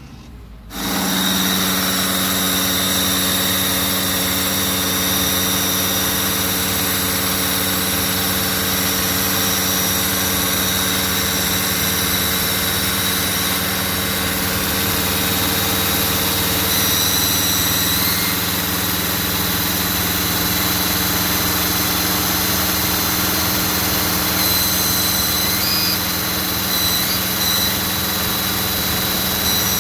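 Mercedes Sprinter 316's 2.7-litre OM612 five-cylinder diesel idling steadily with a constant high whistle over it. The whistle is exhaust gas escaping past a leaking gasket between the exhaust manifold and the turbocharger, not a failing turbo.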